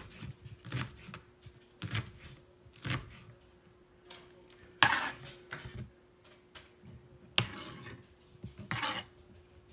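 Chef's knife slicing scallions on a plastic cutting board: separate chops about once a second, two of them louder and drawn out like a short scrape. A faint steady hum sits underneath.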